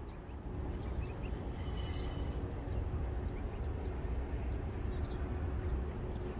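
Steady low wind rumble on the microphone, with faint, scattered high peeps from goslings and a brief high hiss a little over a second in.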